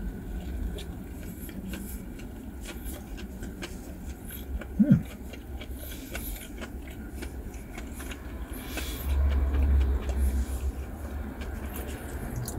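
Traffic rumbling outside a parked car, heard from inside the cabin, swelling as a vehicle passes about nine seconds in. Over it, close-up chewing with small mouth clicks from a man eating a sandwich, and a short hum about five seconds in.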